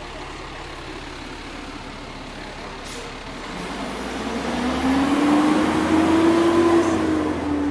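Heavy diesel truck engine running close by, growing louder and rising in pitch about four seconds in as it revs up, then holding, over street traffic noise.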